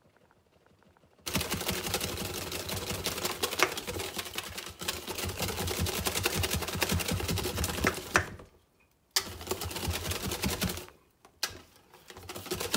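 Somali pancake batter being beaten in a stainless steel bowl: a fast, dense clatter of slaps and clicks starting about a second in, breaking off around eight seconds, then coming back in shorter spells.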